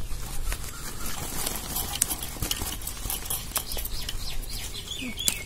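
Irregular light clicks and taps as small fruits are handled in a perforated metal scoop, with a bird chirping a few times near the end.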